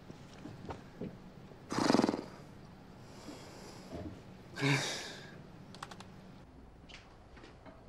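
Computer keyboard typing in faint scattered clicks. A man gives a loud, breathy exhale about two seconds in and a short, low voiced grunt near five seconds.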